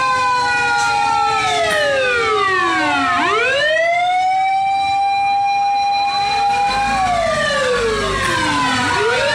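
Fire truck siren wailing. Its pitch holds high, falls to a low point about three seconds in, sweeps back up and holds, then falls and rises again near the end.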